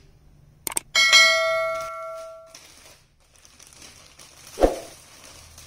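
Subscribe-button sound effect: two quick mouse clicks, then a bell ding that rings for about a second and a half and fades away. About four and a half seconds in, a single thump from the plastic courier packet being handled.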